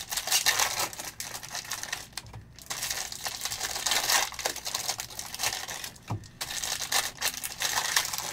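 Trading cards being handled and flipped through one after another: a quick run of light clicks and rustles, pausing briefly twice.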